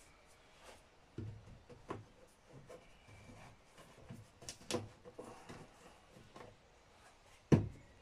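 Plastic bottles of two-stroke oil and fuel mix being handled on a workbench: light clicks and knocks of caps and plastic, then a solid thump near the end as a bottle is set down on the bench.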